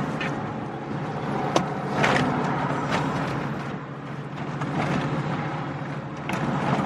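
Steady low hum of a car, with scattered rustles and a few short clicks and knocks as things are handled.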